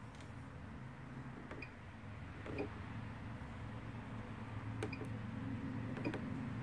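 A handful of short, spaced clicks as the stitch-selection buttons on a Pfaff Passport 2.0 computerized sewing machine's control panel are pressed, over a low steady hum.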